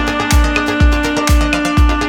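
Electronic dance music with a steady four-on-the-floor kick drum, about two beats a second, under a held synth note.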